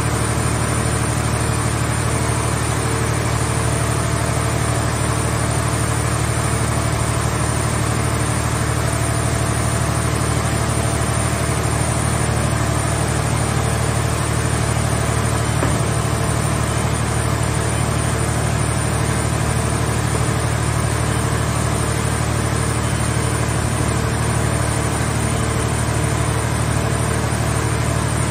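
Scrap car baler's hydraulic power unit running steadily, a low, even drone, while its hydraulic grab is worked.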